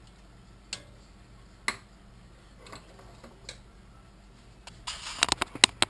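A few light clicks and taps of a measuring cup against a metal saucepan as sauce is scooped and poured, about one a second. Near the end comes a quick run of rapid clattering knocks.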